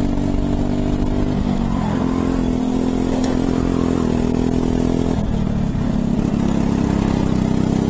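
Racing go-kart engine at full speed, heard from the driver's seat. Its steady note sags briefly about two seconds in and again around five seconds in, then climbs back as the kart lifts off and drives out of the corners.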